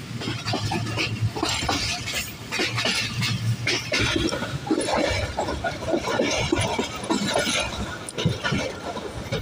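Passenger train running at speed along the track: wheels rumbling over the rails, with a busy irregular clatter of metallic clinks and rattles from the coaches.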